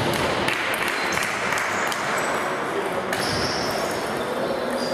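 Table tennis rally: the ball clicking sharply and irregularly off the paddles and the table.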